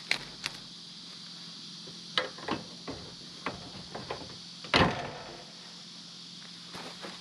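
Scattered knocks and clanks of a hose and its fittings being handled at a plastic water tote's valve, the loudest just before five seconds in, over a steady faint hum.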